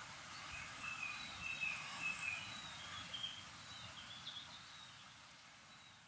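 Small songbirds giving short, high chirps, several scattered through, over a steady background hiss; everything fades out near the end.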